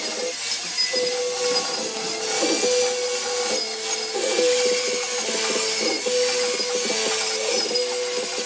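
Angle grinder grinding the steel blank of a leather head knife: a steady motor whine over a high hiss of grinding, its pitch sagging and recovering many times as the disc is pressed into the metal and eased off.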